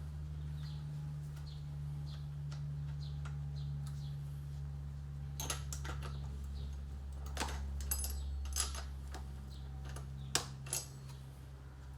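A few sharp metallic clicks and clinks of small tools and parts being handled, loudest near the end, over a steady low hum. Faint regular ticking, about one or two a second, runs through the first half.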